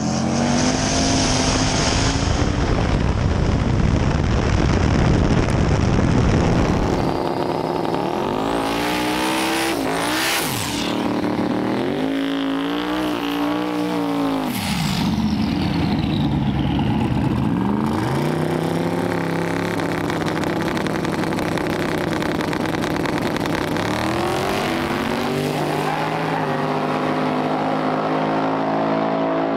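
Drag car engine revving hard through a tyre-smoking burnout. At first there is a dense noise of engine and spinning tyres, then the engine note climbs and drops again and again as it is revved.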